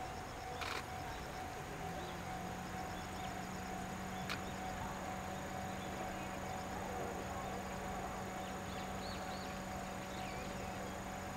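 C57 steam locomotive standing at a station platform, giving off a steady whine and a low hum that comes in about two seconds in. A few sharp clicks and faint high chirps sound over it.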